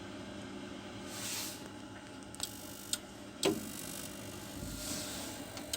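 Combustion fan of a Navien Deluxe C Comfort gas boiler running steadily at low speed after its fan-control board was replaced, with a few sharp clicks from the boiler around two to three seconds in.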